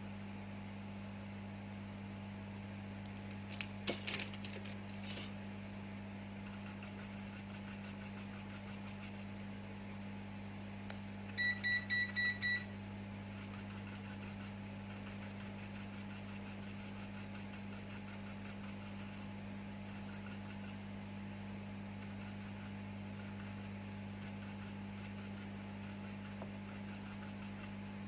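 Steady electrical mains hum from repair-bench equipment, with a few small clicks and taps of tools. A little before halfway, an electronic device gives a quick run of five short, high beeps.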